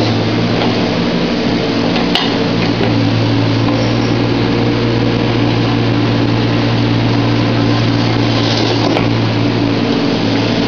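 Volvo EC15 mini excavator's diesel engine running steadily under work, with a sharp click about two seconds in.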